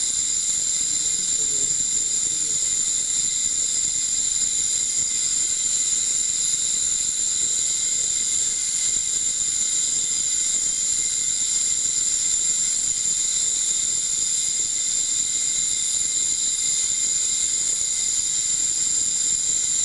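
High-power ultrasonic waveguide emitter running in water, giving a steady shrill whine made of several high tones over a hiss.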